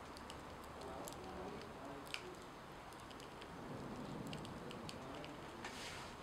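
Faint, sparse crackling and ticking from a corn-masa tortilla smouldering in a metal pan.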